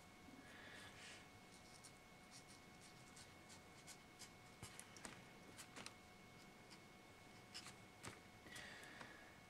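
Faint scratching of a fine drawing tool on paper as ink lines are drawn: many short, light strokes at an uneven pace, over a faint steady whine.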